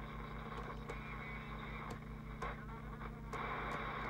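Jesan PRO8000 CB radio's loudspeaker giving off static hiss on receive while the channel knob is turned, with a few short clicks; the hiss drops out briefly twice in the second half.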